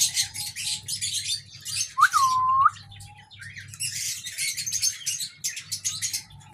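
Aviary birds chirping and chattering in quick, high calls, with one loud whistled note about two seconds in that dips and then rises.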